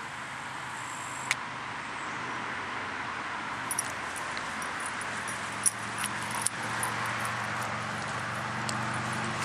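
Steady outdoor background hiss with a faint low hum like distant road traffic. A few sharp clicks and light jingles come about a second in and again between about four and seven seconds in.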